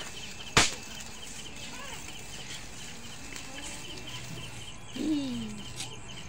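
A single sharp firecracker bang about half a second in, over steady rapid cricket chirping. About five seconds in comes a short falling vocal cry.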